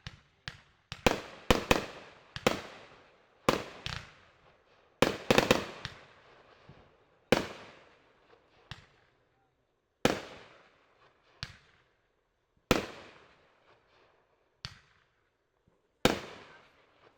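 Fireworks going off: a rapid run of sharp bangs, each trailing off in an echo, crowded together for the first several seconds and then single bangs every second or two.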